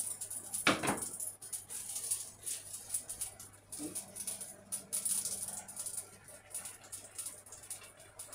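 Crinkly plastic bread bag rustling as a loaf of sliced bread is handled, with a single knock about a second in.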